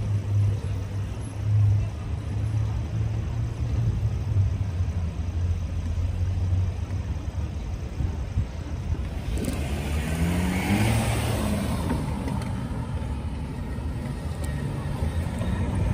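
Street traffic: a car drives past close by about ten seconds in, its engine sound swelling and then fading, over a steady low rumble.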